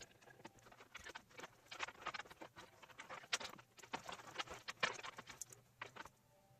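Irregular light clicks and rustling of hands handling computer parts, with a quick cluster of taps in the middle.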